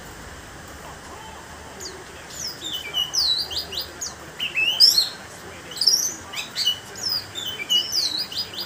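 Caged orange-headed thrush singing: after a quiet start, about two seconds in it breaks into a fast, loud run of whistled notes, each sweeping quickly down or up in pitch, that carries on to the end.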